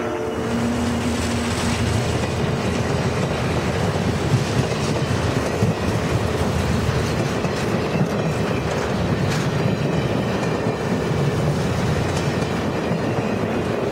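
A train rolling past close by: a steady rumble of wheels on the rails, with scattered clicks as the wheels cross rail joints.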